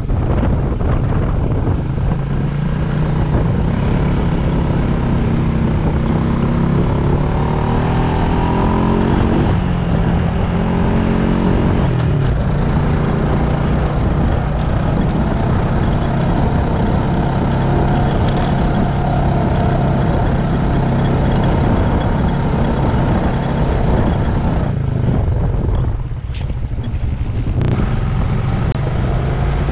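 Off-road vehicle's engine running under load while driving over soft beach sand and dunes. It revs up twice in the middle, then eases off briefly near the end.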